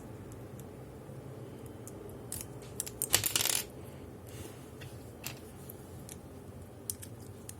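Scattered sharp clicks of small hard pieces, with a short clattering rattle about three seconds in, as a Transformers robot toy is handled.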